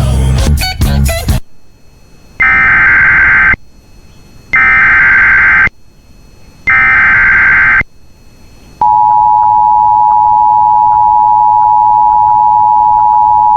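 Emergency Alert System SAME header: three loud bursts of buzzing data tones, each about a second long and about a second apart. About nine seconds in, the steady EAS attention tone begins, a loud electronic tone near 1 kHz. A short, loud, noisy burst of sound comes at the very start.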